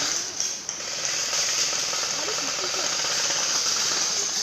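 Steady high-pitched hiss of outdoor background noise, with faint distant voices.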